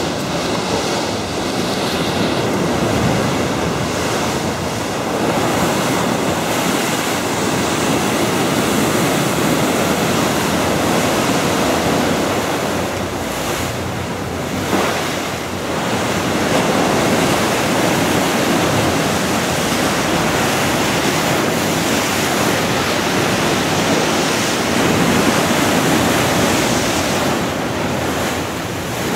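Rough sea: heavy waves surging and breaking against a concrete sea wall and slipway, swelling and easing every few seconds, with strong wind buffeting the microphone.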